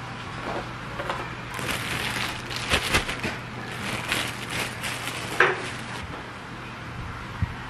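Plastic bread bag crinkling and rustling in irregular bursts as sliced white bread is handled, with a sharp click about five and a half seconds in and a low steady hum underneath.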